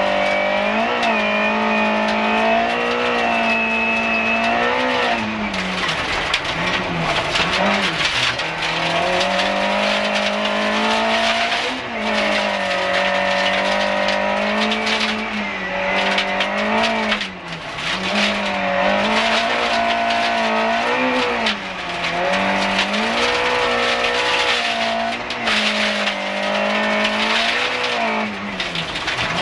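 Group H rally car engine at high revs, heard from inside the cabin, its note holding and then dipping and climbing again with each lift, gearshift and re-acceleration. Gravel hiss and rattle from the tyres and underbody run over it.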